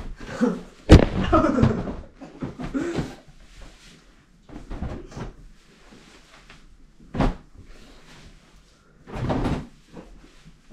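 A door bangs hard about a second in, followed by a few scattered thumps and knocks.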